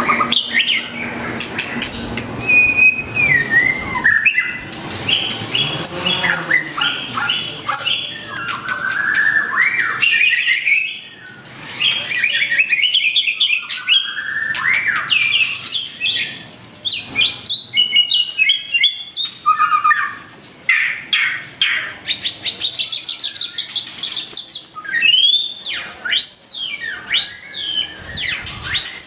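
White-rumped shama (murai batu) in full, continuous song: clear whistles gliding up and down, mixed with rapid chattering trills and clicks, with short pauses between phrases.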